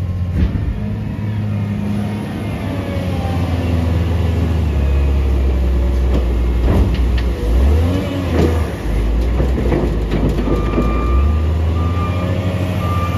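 Case wheel loader's diesel engine working hard under load, its pitch shifting as it lifts a bucket of leaves and tips them into a garbage truck's steel hopper, with crackling and clatter as the leaves spill in. From about ten seconds in, a reversing alarm beeps at a steady rate.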